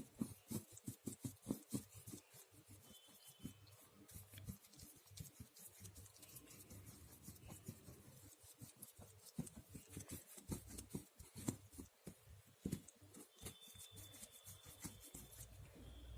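Faint, quick scrapes and taps of a painting knife working acrylic paint onto a board canvas, many short strokes in a row.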